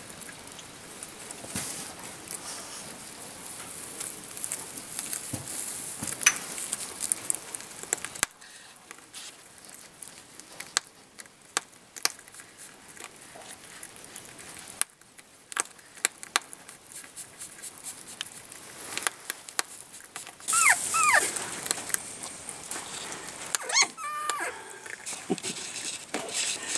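Dry hay and straw rustling and crackling as a woodchuck shifts about in its nest, in many small clicks over a hiss. Near the end come a few short squeaky sounds that bend up and down in pitch.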